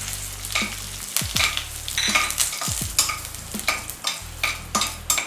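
Tempering of mustard seeds, urad dal, curry leaves and dried red chillies with turmeric sizzling in hot coconut oil in a kadai, stirred with repeated scraping strokes against the pan, about two or three a second.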